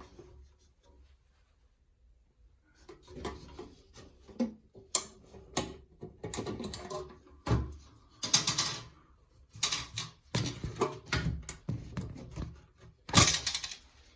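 Irregular clicking, knocking and scraping of the bathroom exhaust fan's plastic grille and its metal mounting springs being handled and pulled free of the housing. It starts about three seconds in after near quiet.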